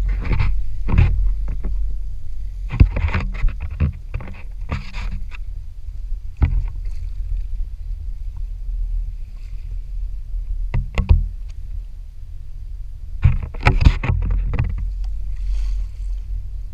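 Small outboard fishing boat at sea: a steady low rumble with a faint hum, broken by scattered sharp knocks and clatter on the boat, with a cluster of them near the end.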